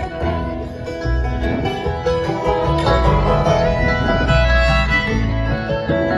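Live bluegrass band playing through a concert PA: banjo and guitar picking with fiddle over a steady bass.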